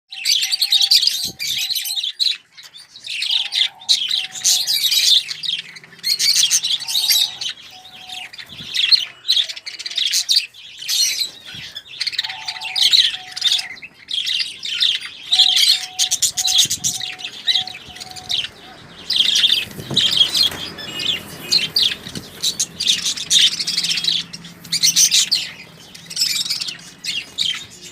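A flock of budgerigars chirping and chattering in dense, rapid bursts, with brief pauses between runs.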